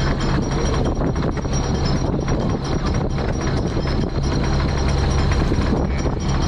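Fishing trawler's diesel engine running steadily: a continuous low drone with a thin, steady high whine above it.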